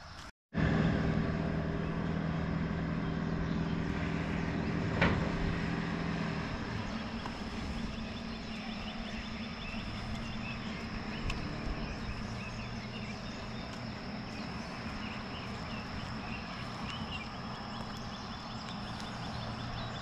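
Footsteps walking on a wet paved road, over a steady low hum and outdoor background noise, with one sharp tap about five seconds in.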